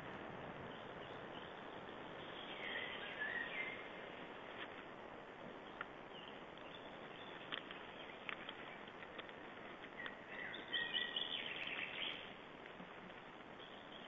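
Small forest songbirds singing in two brief phrases, about three seconds in and again around ten to twelve seconds, over a steady background hiss, with a few faint clicks in between.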